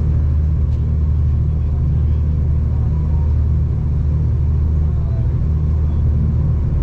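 Steady low rumble of a V/Line passenger train running along the line, heard from inside the carriage.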